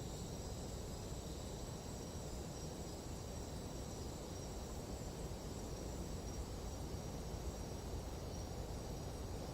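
Nighttime jungle insect chorus: several high, unbroken tones held steady, over a low steady rumble.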